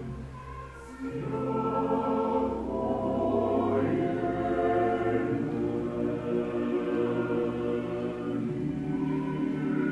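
Mixed choir of women's and men's voices singing Byzantine Orthodox church chant a cappella, in long held notes over a steady low note. The singing dips briefly about half a second in, then the next phrase swells in.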